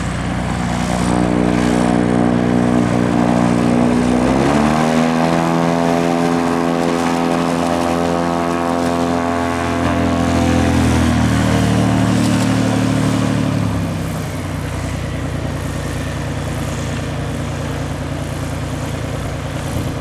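Piper PA46-350P Malibu Mirage's turbocharged six-cylinder Lycoming piston engine and propeller running at taxi power. Power comes up sharply about four seconds in, is held, then eases back down to a lower steady pitch between about eleven and fourteen seconds.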